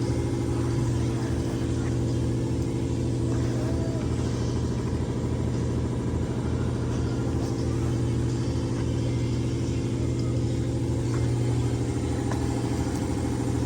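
BMW 535i's N55 turbocharged straight-six idling steadily after a full timing chain replacement.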